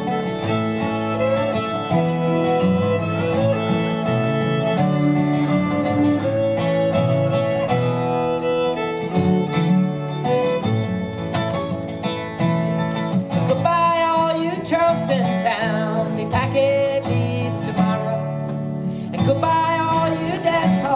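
An acoustic duo playing a tune on fiddle and acoustic guitar, the bowed fiddle melody over strummed guitar chords.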